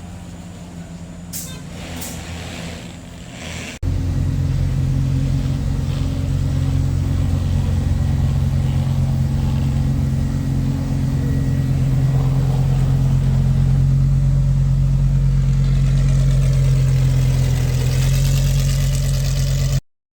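Car engine idling with a steady low rumble. It is quieter for the first few seconds, then suddenly much louder and steady until it cuts off abruptly.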